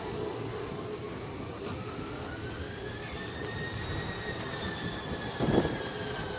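Jet airliner engines running at a distance: a steady rush with a whine that rises in pitch and then slowly falls. A brief thump is heard about five and a half seconds in.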